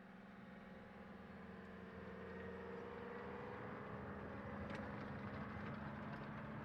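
Tank engines droning, growing louder as the tanks draw near, with a tone that rises and then eases. A few sharp clicks come in from about two-thirds of the way through.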